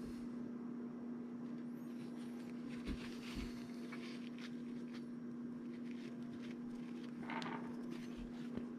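Faint rubbing and handling of a paper tissue wiping excess glue off a plastic earbud shell, with two soft knocks about three seconds in, over a steady low hum.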